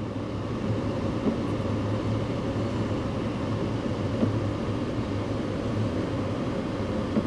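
Steady low rumbling noise with a humming undertone.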